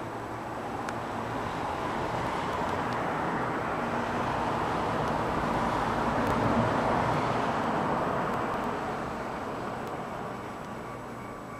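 Traffic noise from a passing vehicle: an even rush that builds over several seconds, peaks a little past the middle and fades away again.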